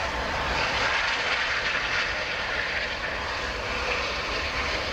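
LV-class steam locomotive drifting slowly toward the listener, giving a steady rushing hiss of escaping steam and exhaust over a low rumble.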